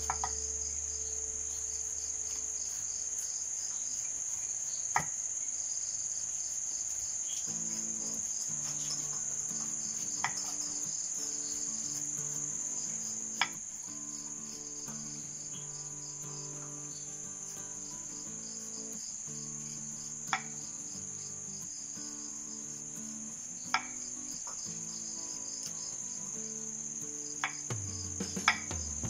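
Steady high chirring of crickets, with a sharp tap every few seconds from a kitchen knife striking a wooden chopping board as wild breadfruit (wal del) is peeled and cut.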